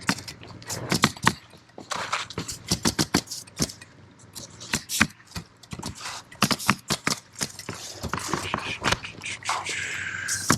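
Irregular sharp clicks and knocks with stretches of scraping, from hand tools at work.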